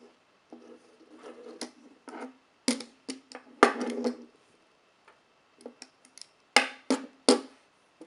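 Rigid steel Speedcuffs handcuffs handled and knocked against a wooden tabletop: an irregular run of clicks and knocks with brief metallic ringing, the loudest knocks a little after the middle and three close together near the end as the cuffs are set down flat.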